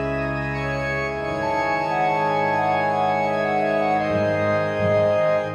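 Music: an organ playing held chords over a low drone, the chord changing a couple of times, as the slow intro of a track.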